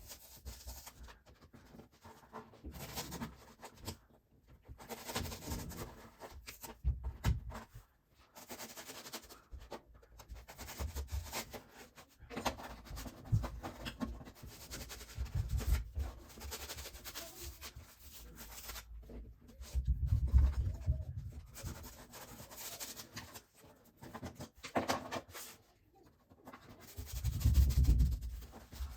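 Razor blade cutting and scraping hardened spray foam out of a hole in a hollow-core door, in irregular short strokes, with a couple of louder low thumps near the end.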